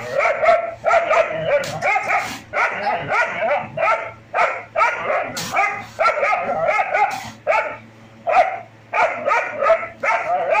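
German shepherd barking rapidly and repeatedly at a cornered cat, in runs of several loud barks broken by short pauses.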